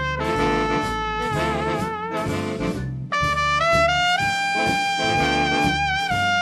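Background jazz music with a brass melody of long held notes, some with vibrato, over a steady low bass line; the tune pauses briefly about three seconds in.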